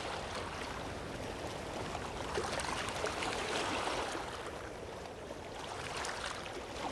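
Ocean waves washing gently onto a beach, swelling to a soft surge a few seconds in, ebbing, then building again near the end.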